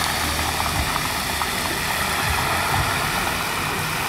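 Whole seasoned fish deep-frying in a large wok of hot oil: a steady sizzle, over a low rumble.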